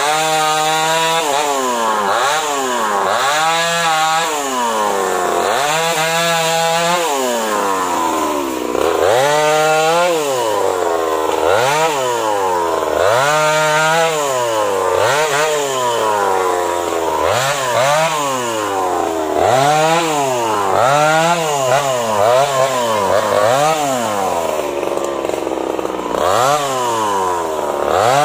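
STIHL MS 250 two-stroke chainsaw revving up and down over and over, its pitch rising and falling every second or two as it cuts into a teak trunk and its limbs.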